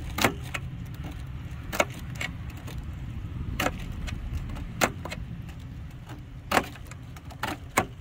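Malco fin-straightening comb drawn through the smashed metal fins of an air-conditioner condenser coil, straightening them: a run of sharp metallic clicks and scrapes, about eight, irregularly spaced. A low steady hum runs underneath.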